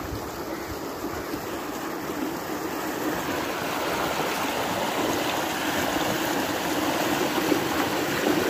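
Irrigation channel water rushing and churning white around a pipe set in the channel, a steady splashing flow that grows gradually louder.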